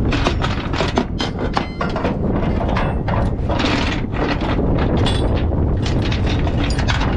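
Steel tie-down chain links clinking and knocking against each other and the trailer deck as the chain and binder are hooked up, a string of irregular sharp knocks. Wind rumbles on the microphone underneath.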